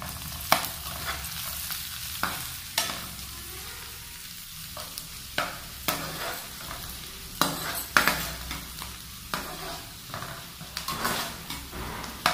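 Chopped onions, green chillies and whole spices sizzling in hot oil in a non-stick pan, with a steady sizzle throughout. A steel spoon stirs them, clinking and scraping against the pan every second or two.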